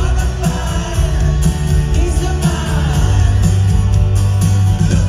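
Live rock band playing: a male lead singer singing over strummed acoustic guitar, keyboard and a strong bass.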